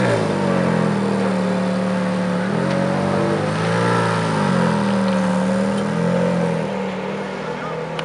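Ferrari F430's V8 exhaust settling from a rev into a steady idle, with light throttle blips about three and four seconds in and again around six seconds. Near the end the car pulls away slowly at low revs.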